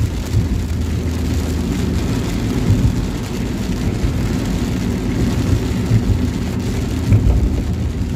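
Steady low engine and road rumble heard from inside a moving vehicle on a wet highway, with heavy rain hitting the windshield.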